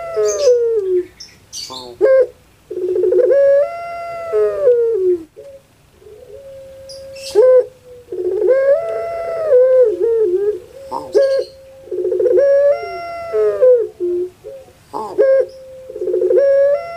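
Female puter (Barbary dove) cooing in a rhythmic series: a long coo roughly every four seconds, each one starting with a low stutter, swelling upward and then falling away, with a held note between some coos.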